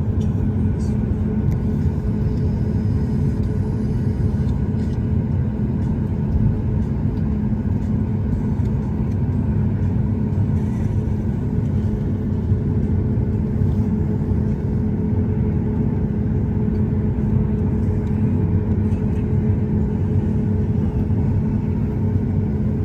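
Steady cabin rumble of a Boeing 737-8 MAX on the ground before takeoff, its CFM LEAP-1B engines at idle, with a constant low hum and no changes.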